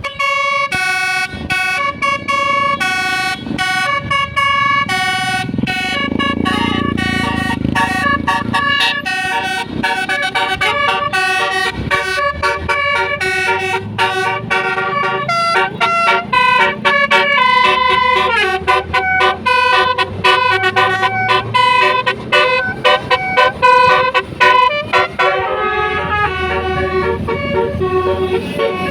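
Tour bus telolet horn: a set of electric trumpet horns playing a quick melody of changing notes over and over, with the bus engine running underneath.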